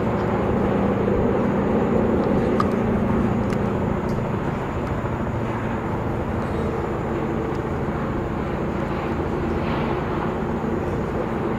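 Antonov An-70's four contra-rotating propfan engines running steadily as the aircraft sits on the runway, a drone with several steady tones, a little louder in the first few seconds.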